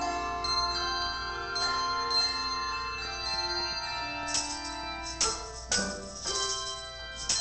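Handbell choir playing a piece: many bells ringing in overlapping, sustained notes, with a few sharper, bright strokes from about four seconds in.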